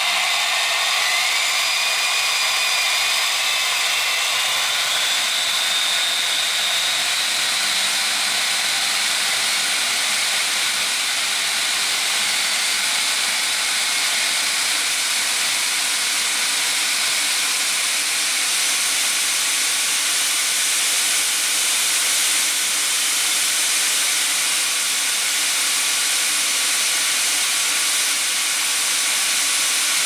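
Hoover U5280-940 vacuum cleaner's universal motor, its armature held by only one bearing and fed through the field windings from a step-up transformer, running at high speed: a loud, steady hiss with a whine that climbs over the first several seconds as the motor speeds up, then holds steady.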